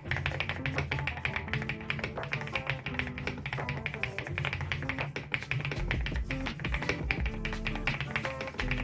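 Rapid typing on an Ajazz AK820 mechanical keyboard fitted with Gateron Smoothie linear switches, with an all-polyacetal (POM) stem and housings, under thick keycaps: a dense, uneven stream of key clacks. Background music plays under it.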